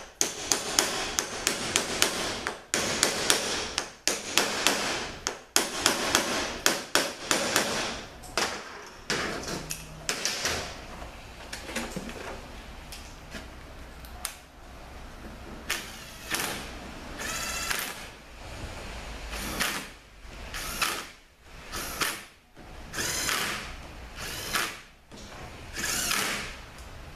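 Ball-peen hammer tapping many times on a Chrysler 62TE transmission's aluminium compounder assembly over roughly the first nine seconds. After that, a DeWalt cordless driver runs the assembly's bolts down in a series of short bursts every second or two.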